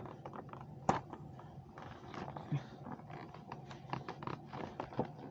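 Hands working at a toy's packaging, trying to get it open: scattered small clicks, taps and scrapes, with one sharp click about a second in and another near the end.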